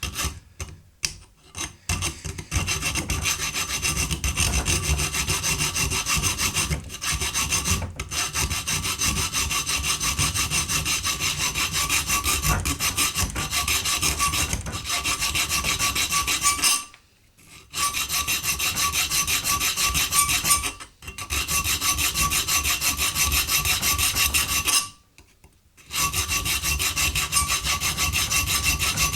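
Hand file scratching back and forth across a workpiece in rapid, steady strokes, stopping briefly three times.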